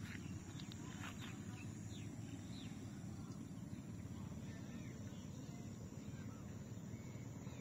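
Steady wind noise on the microphone, with faint, short bird chirps now and then.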